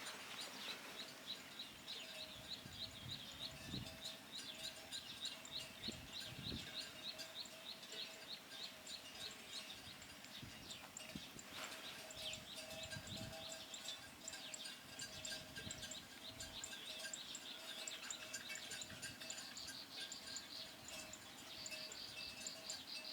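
Wetland ambience: rapid, evenly repeated high-pitched chirping of small wild creatures over a steady droning tone, with soft low thumps now and then.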